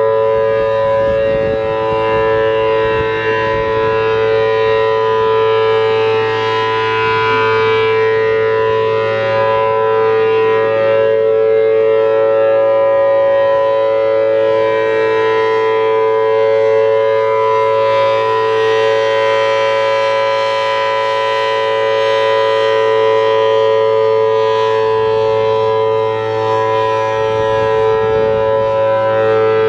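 Federal Signal Thunderbolt 1000T rotating siren with a 4/5-port chopper, sounding the steady alert signal: a loud, held two-tone chord that swells gently in loudness.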